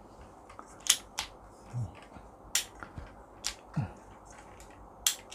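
Sharp plastic-and-metal clicks from the Ulanzi SK-04 aluminium tripod's leg-angle locks as the legs are moved down into another lock position: about half a dozen short clicks, irregularly spaced.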